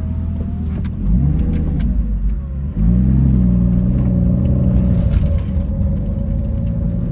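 Lamborghini Gallardo's V10 engine accelerating as the car pulls away, heard from inside the cabin: the engine note rises with a jump in loudness about a second in, again near three seconds in, then holds steady.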